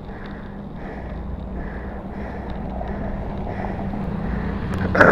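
Traffic and road noise heard from a moving bicycle, with wind on the microphone. The noise swells steadily, and a loud passing sound comes just before the end.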